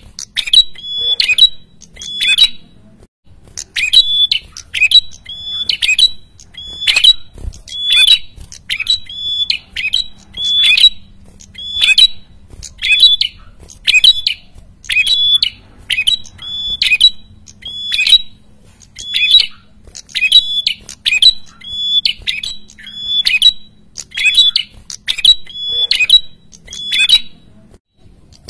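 Caged prenjak kepala merah calling loudly and insistently: a harsh, sharp note with a quick downward flick, repeated about once a second with a short break about three seconds in. This is the noisy "ribut" call used to draw in rival birds.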